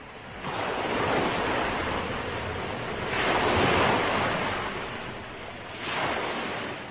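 Sea surf: waves washing in, swelling three times.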